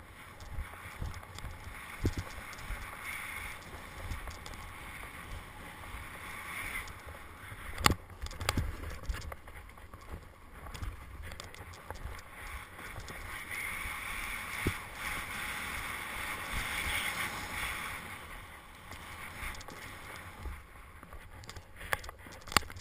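Snowboard sliding through powder snow: a continuous swishing hiss that swells and fades with the turns, broken by occasional sharp knocks, the loudest about eight seconds in.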